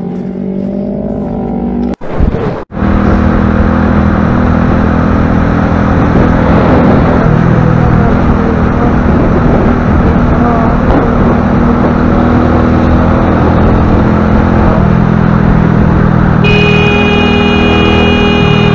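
Motorcycle engine running steadily while riding in highway traffic, with heavy wind and road noise on the microphone. A steady high-pitched tone joins near the end.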